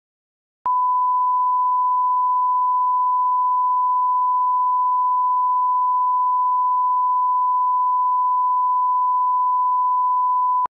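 Steady 1 kHz line-up test tone of the kind that goes with colour bars: one pure, unchanging beep that switches on with a click under a second in and cuts off sharply with a click near the end, about ten seconds later.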